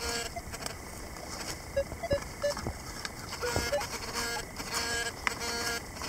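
Handheld metal-detecting pinpointer sounding short electronic beeps as it is held over the loose dirt, signalling a metal target; the beeps come in a steady repeating run in the second half.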